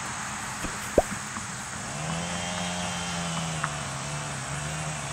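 An engine running steadily with a low hum, coming in about two seconds in, after a single sharp click about a second in.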